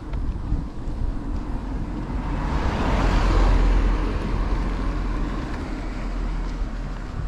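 A small car passing close from behind and driving on up the road: engine and tyre noise swelling to its loudest about three seconds in, then slowly fading. Low wind rumble on the microphone underneath.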